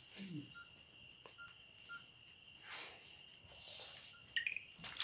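Crickets chirping in a steady, continuous drone.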